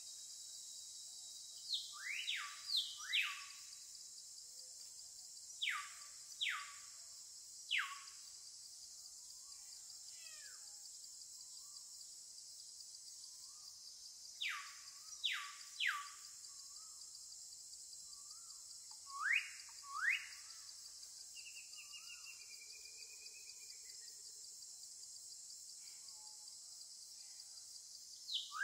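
Bird calls: short whistles that rise steeply in pitch, given in groups of two or three every few seconds, with a brief warbling call about two-thirds of the way through. Under them runs a steady high-pitched background of insects.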